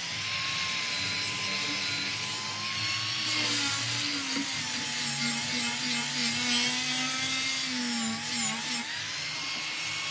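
A power tool running steadily, its motor pitch wavering and dipping as it bears on the work.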